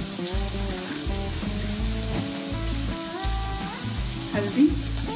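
Onion, tomato and spices frying in oil in a metal kadhai, with a steady sizzle, under background instrumental music that has a stepping melody and a regular bass beat.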